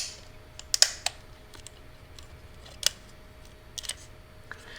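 A few sharp plastic clicks and knocks, spaced irregularly, as a hard drive is fitted into its plastic drive caddy.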